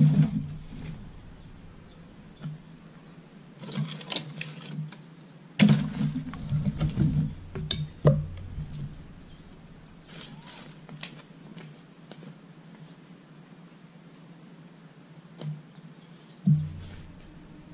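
Firewood being split with an axe: irregular chopping blows into logs, one right at the start, a quick run of blows about six seconds in, scattered single strikes after, and one more near the end. Insects buzz steadily underneath.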